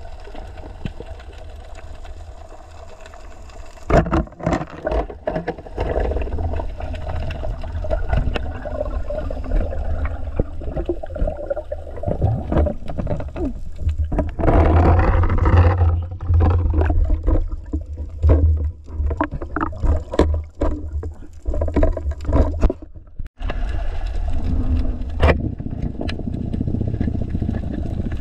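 Muffled underwater noise heard through an action camera's waterproof housing: a steady low rumble of water movement with scattered knocks and scrapes. It gets louder and rushing about halfway through.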